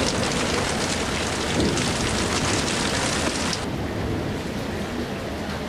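Heavy rain pouring down in a steady hiss. About three and a half seconds in, the sound abruptly turns to a duller, lower rush.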